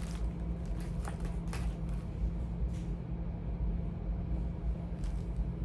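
A few light clicks and rustles of charging cords and plugs being handled, over a steady low hum.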